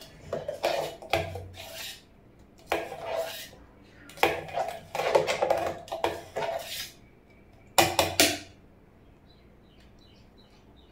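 A metal spoon scraping and clinking against a steel vessel, in four spells of clattering.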